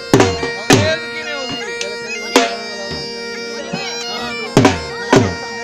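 Live jhumar dance music: a reed wind instrument holds a steady drone under a wavering melody, and heavy drum strokes that drop in pitch land twice near the start, once in the middle and twice near the end.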